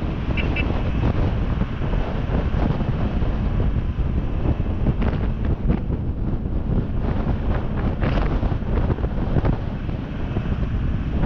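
Strong wind buffeting the microphone: a loud, uneven low rumble with no steady pitch.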